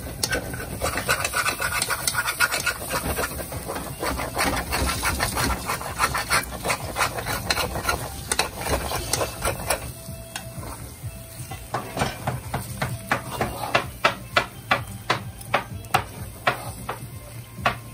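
Metal spoon stirring and scraping fried bodi and potatoes around a pan, rubbing over the bottom where the mixture has been sticking and browning. In the last few seconds the scrapes become sharp, quick strokes, a few each second.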